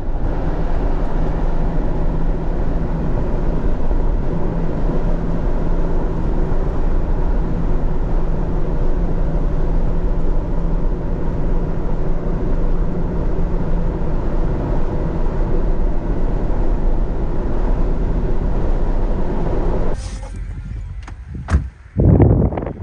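Jeep Gladiator driving: steady road and engine noise with a constant low hum. It drops off suddenly near the end, followed by a few sharp knocks.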